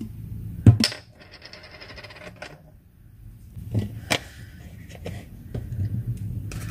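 Sharp clicks and taps from a clear plastic bowl of instant snow being handled, the loudest click under a second in, followed by a short, fast, even rattle and a few more single taps.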